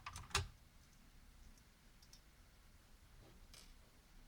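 A few small sharp clicks in the first half-second, then one faint click a little past three seconds, over a quiet room: parts of an opened laptop being handled during disassembly.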